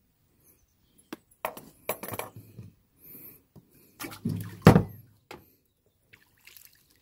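Knocks and clatter of gear being handled around an open deck hatch on a fishing boat, with one heavy thump just before five seconds in as the hatch lid drops shut.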